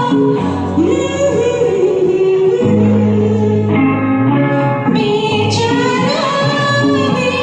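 A woman singing a Hindi film song in sustained, gliding phrases over an instrumental backing track.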